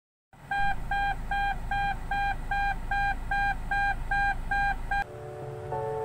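A car's seat belt reminder chime beeping fast and evenly, about two and a half short beeps a second, over a low hum. The chime cuts off about five seconds in and music with piano-like notes begins.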